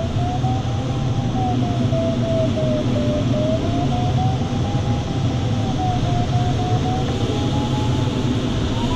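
Glider variometer's audio tone, one continuous pitch that slowly wavers up and down and rises near the end, over the steady rush of airflow around the cockpit.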